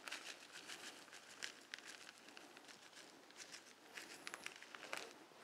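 Faint crackle of dried rosemary crumbled between the fingers and scattered onto raw pork belly: an irregular patter of small dry ticks.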